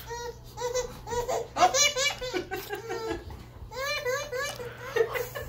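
A baby laughing in runs of short, high-pitched bursts.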